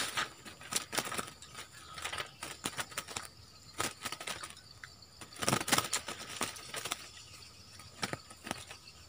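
Caged bulbuls fluttering and hopping in a hanging wire cage: bursts of wing flaps and rattling against the bars, with the loudest cluster a little past halfway.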